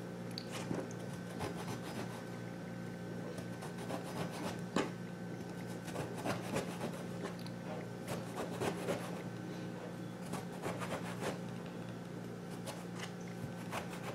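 Kitchen knife scoring eggplant flesh against a cutting board: soft, irregular scrapes and light taps of the blade, one sharper tap about five seconds in, over a steady low hum.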